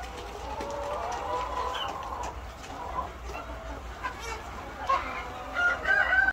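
A flock of laying hens clucking and calling, many overlapping short calls, with louder, higher calls near the end.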